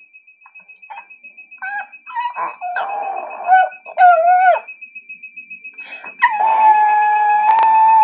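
A Chihuahua whining and howling along with a digital door lock's alarm, a steady rapid high beeping that was set off by a wrong passcode. Short yelps about a second in build to a long, steady howl from about six seconds in.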